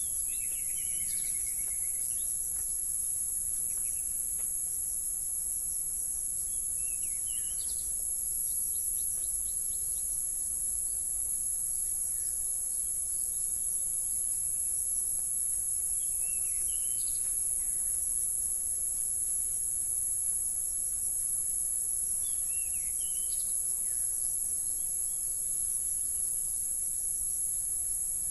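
Steady, high-pitched chorus of insects such as crickets, unbroken throughout. A bird gives a short descending call four times over it.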